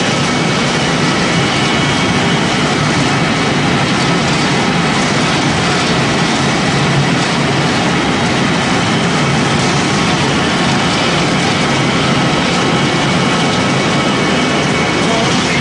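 Pellet mill running steadily, pressing corn-stalk and sawdust into pellets. It makes a loud, even mechanical din with several steady high-pitched hums over it.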